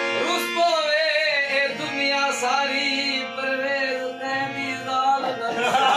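A man singing a long, wavering held phrase of a folk song over a harmonium's steady sustained notes. The vocal line breaks off about five seconds in.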